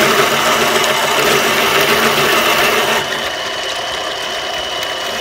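Harbor Freight Central Machinery mini lathe running steadily while a 23/64-inch twist drill in the tailstock chuck bores into the end of a spinning bolt, with a faint steady high whine. The sound drops a little about three seconds in.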